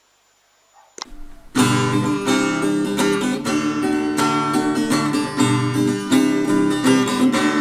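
Acoustic guitar strummed in a steady rhythm, the intro of a song; it starts about one and a half seconds in, after a second of near silence and a short click.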